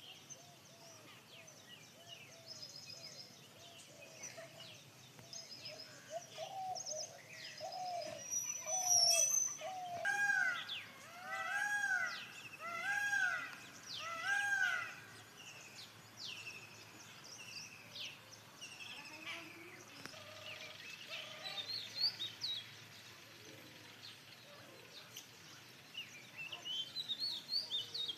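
Birds calling outdoors. A long series of arched, rise-and-fall calls repeats about once a second and is loudest midway, while higher, shorter chirps of small birds come in throughout.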